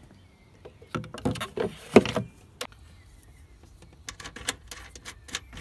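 Knocks and clunks as a BMW E46 coupe rear light cluster is handled and fitted into place on the car, the loudest about two seconds in. Near the end comes a run of quick light clicks as it is secured from inside the boot.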